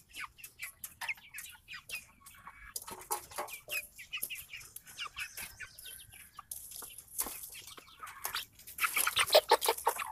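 A flock of seven-week-old Red Ranger broiler chickens calling, with many short calls scattered throughout and a louder burst of calls near the end.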